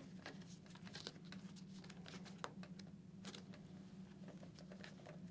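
Faint rustling and small clicks of hands handling a Shoei GT-Air II helmet's padding and liner, over a steady low hum of room tone.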